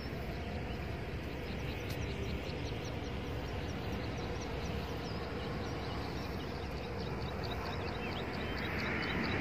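Steady outdoor background rumble by open water, with high, quick chirps of a small bird repeating several times a second above it.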